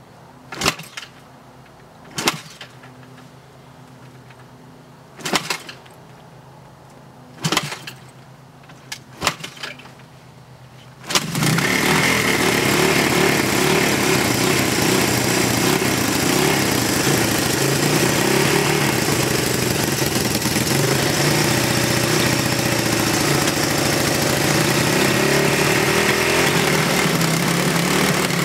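1982 Honda XR200R's single-cylinder four-stroke engine being kick-started: five short bursts as it is kicked over without catching, then it starts about eleven seconds in and runs steadily.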